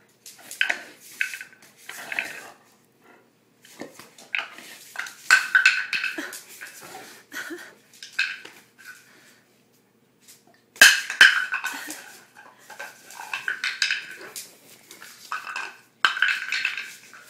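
A small hard object scraping and clattering across a bare concrete floor as a Greater Swiss Mountain Dog paws and bats at it, in irregular bursts with a sharp clack about eleven seconds in.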